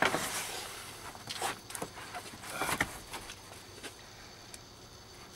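Fiberboard headliner of a 1997 Honda Civic scraping and rubbing against the car's door frame and interior trim as it is angled out through the door opening: a rustling scrape at the start, then a few short knocks and scuffs, dying down after about three seconds.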